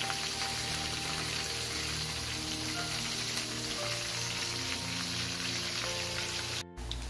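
Chicken breast pieces deep-frying in hot oil in a wok: a steady sizzle under background music of held notes. The sound cuts out for a moment near the end, then picks up again.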